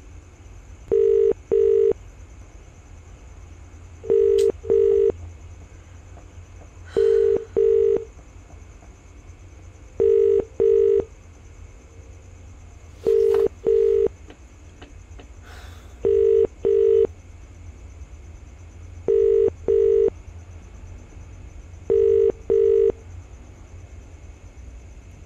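Telephone ringback tone of an outgoing call, heard from the phone's speaker: eight double beeps at one steady low pitch, a pair about every three seconds. The call is ringing and has not been answered.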